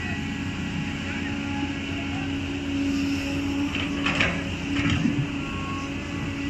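Cat 320D excavator running with a steady diesel engine hum as the boom lifts and swings. About four seconds in, the bucket dumps wet soil into a dump truck bed with a couple of thuds.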